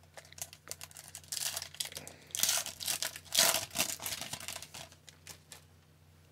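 Foil wrapper of an Upper Deck hockey card pack being crinkled and torn open, a run of dense crackling that is loudest about halfway through and dies away near the end.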